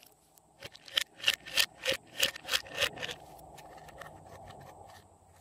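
Hands handling slime: a quick run of sharp clicks and pops, about three a second, for some two seconds, then a softer steady rustle.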